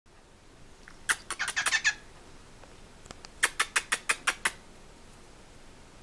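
Male cockatiel making kissing sounds copied from a person: a quick cluster of sharp smacking clicks about a second in, then a run of seven evenly spaced kisses a little later.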